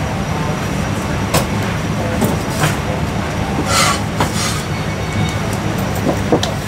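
Steady low rumbling background noise, with a few light knocks and a short scrape near the middle as a steel cleaver slides under sliced marinated goose on a wooden chopping block.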